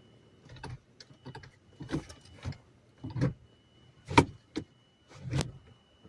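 Manual gear shifter of a Toyota Camry being worked through the gears: a series of irregular clunks and clicks, about nine in six seconds.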